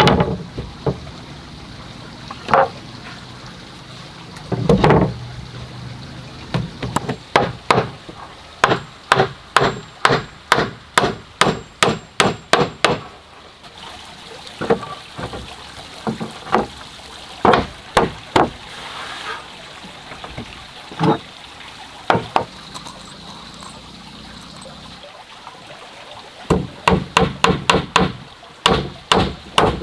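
Claw hammer driving steel nails into wooden planks: runs of quick, even blows, about two to three a second, with pauses between runs. There are a couple of heavier wooden thuds near the start.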